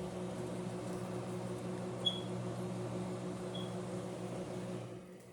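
Microwave oven running with a steady hum on a short 12-second heating cycle, shutting off near the end. Two short high pips about two and three and a half seconds in.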